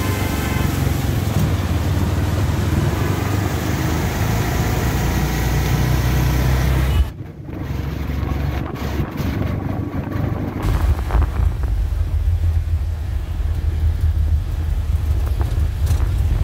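CNG auto-rickshaw's engine running with road rumble, heard from inside the passenger cab. The sound drops suddenly about seven seconds in, then comes back as a heavier low rumble.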